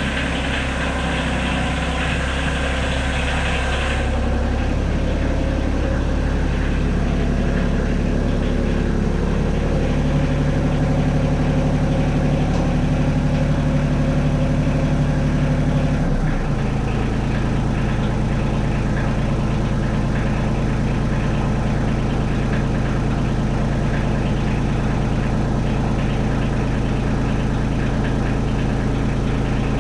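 Compact loader tractor's engine idling close by, a steady running hum. Its note changes about ten seconds in and drops back suddenly at about sixteen seconds.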